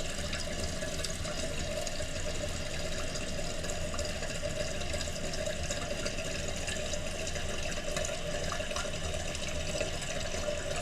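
Water running steadily into a toilet tank, the fill valve refilling it after a flush.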